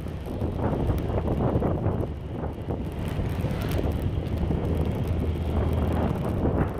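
Wind buffeting the microphone of a rider on the move, in uneven gusts over a steady low rumble.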